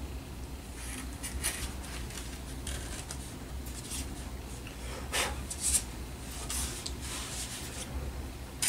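Hand work on model airplane wing parts at a workbench: light scraping, rubbing and small clicks as pieces are handled, with a couple of sharper clicks about five to six seconds in. A low steady hum sits underneath.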